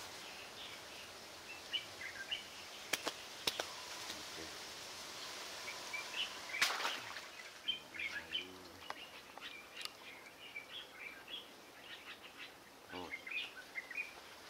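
Small birds chirping in many short high calls over a steady outdoor hiss, with a few sharp clicks, the loudest a little past halfway.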